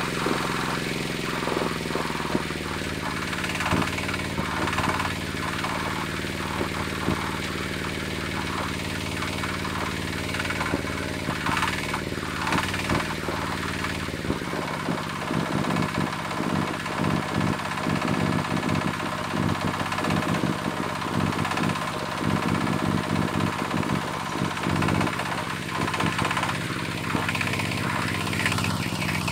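Zubr 12 hp two-wheel tractor's single-cylinder diesel engine running under load as it pulls a trailer uphill. In the second half its separate firing thumps come through plainly as it draws near.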